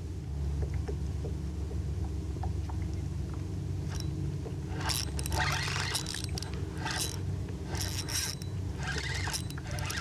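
Spinning reel being cranked to bring in a hooked speckled trout, with irregular scraping noises from about halfway in over a steady low rumble.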